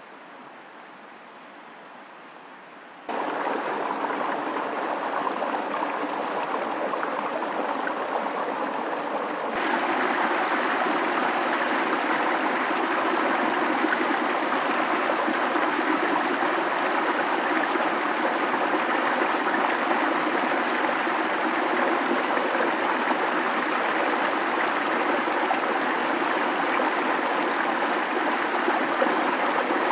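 Steady rush of running water. It steps up in level about three seconds in and again about ten seconds in, then holds steady.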